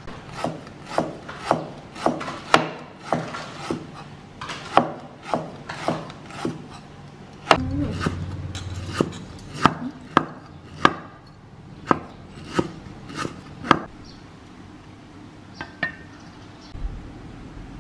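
Cleaver slicing lemongrass into thin rounds on a wooden chopping board: a steady run of sharp strikes, about two a second, that stops a few seconds before the end, followed by a few faint clicks.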